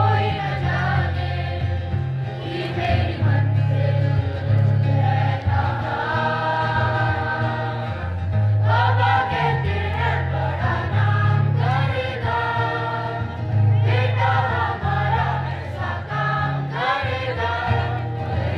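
Music: a choir singing over an accompaniment, with a bass line that steps between held notes.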